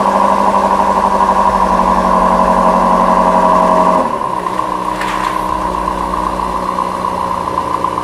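BMW M5 Competition's 4.4-litre twin-turbo V8 idling just after starting, at first steady and fast, then about four seconds in the idle steps down and gets a little quieter.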